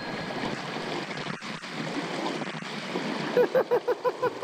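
Shallow creek water rushing steadily over rocks and around wading legs. Near the end a person's voice breaks in with a quick run of short syllables.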